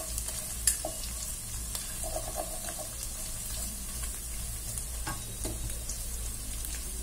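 Eggs sizzling in hot oil in a nonstick wok while a wooden spatula stirs and breaks them up. A few light taps and scrapes of the spatula on the pan can be heard over the steady sizzle.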